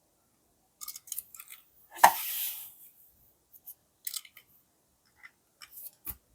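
Plastic blister packaging of a Hot Wheels die-cast car being handled and cut open with scissors. Scattered crinkles and clicks, then one sharp snip with a short rustle about two seconds in, and a low knock near the end.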